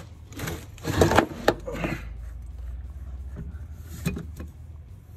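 Handling knocks and rustles, densest in the first two seconds with a sharp click about a second and a half in and another knock near four seconds, over a low steady hum.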